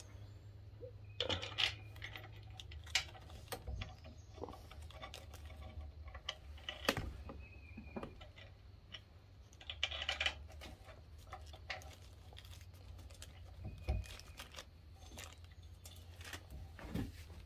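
Scattered light metallic clicks and taps of hands fitting bolts and a pump housing against the engine, with a couple of sharper knocks.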